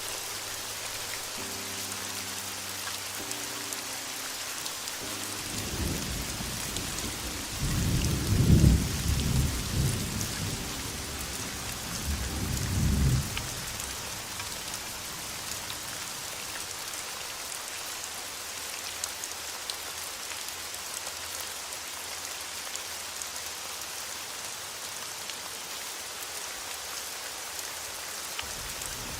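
Steady heavy rain, with a long roll of thunder starting a few seconds in and lasting about eight seconds, swelling to two loud peaks. Faint soft music tones sound under the rain at the start.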